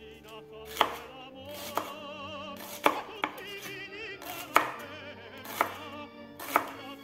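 Kitchen knife slicing a shallot on a cutting board: about seven sharp chops, roughly one a second. Background music with operatic singing plays under it.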